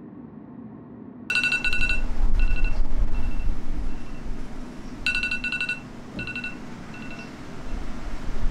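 A smartphone ringing with a short electronic phrase of beeps, starting about a second in and repeating about four seconds later, over a low rumble.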